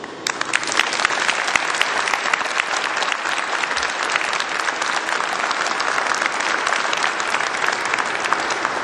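Audience applauding, many hands clapping. It starts suddenly just after the start and keeps a steady level.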